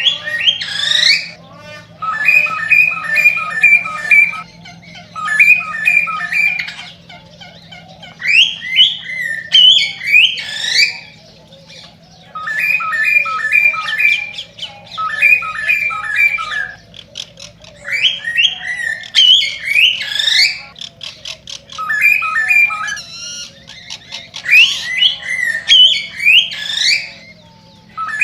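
Male cockatiel singing its excited breeding song: repeated phrases of quick chirps in short runs alternating with rising whistled notes.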